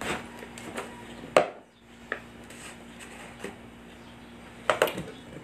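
Plastic screw stopper of a hot-water vacuum flask being twisted off and lifted out: scattered clicks and knocks, the sharpest about a second and a half in and a quick pair near the end.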